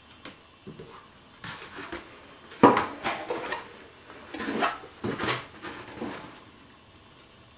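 Foam model airplane parts being handled and moved on a work table: a sharp knock about two and a half seconds in, then several bursts of rustling and scraping.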